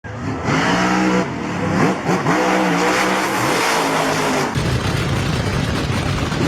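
Car engine revving, its pitch dipping and rising several times, changing about four and a half seconds in to a rougher, noisier rumble.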